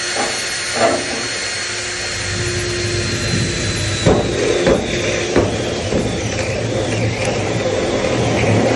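Power drill running with a unibit step bit, boring a hole through the sheet-metal return duct, a steady drone with a few sharp clicks near the start and the middle as the bit bites the metal.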